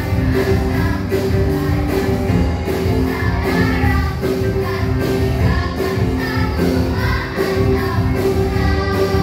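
Children's choir singing in unison over accompanying music with a steady beat.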